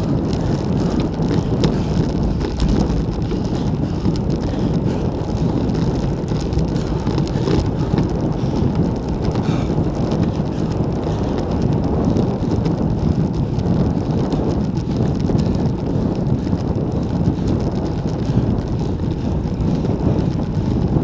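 Steady wind rush and tyre-on-road noise from a road bike travelling at about 30 km/h, picked up by a handlebar-mounted action camera's microphone.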